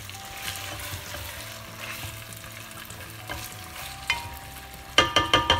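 Soaked white beans and tomato paste sizzling in hot oil in a pot as they are stirred and turned with a spatula. Near the end comes a quick run of about six sharp, ringing knocks of the spatula against the pot.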